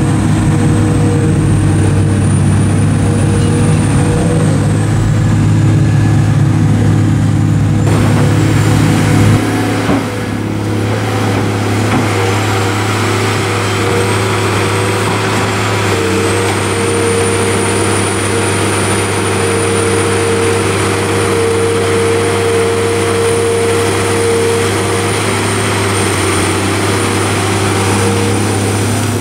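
Caterpillar 345B L Series II excavator's diesel engine running steadily under working load while digging silt from a pond, with a faint high whine that rises and falls. The engine note shifts about ten seconds in.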